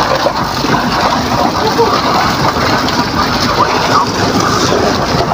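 Water splashing and dripping off a fishing net and its float line as it is hauled wet over the side of a boat, over the steady running of the boat's engine.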